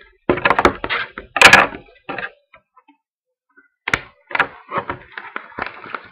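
Crackling and rustling as a 2014 Crown Royale trading-card box is unwrapped and opened by hand, loudest about one and a half seconds in. After a short pause come lighter clicks and rustles of the cardboard being handled.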